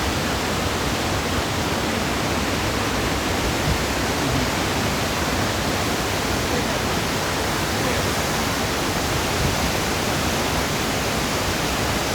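Waterfall pouring: a loud, steady rush of falling water with no breaks.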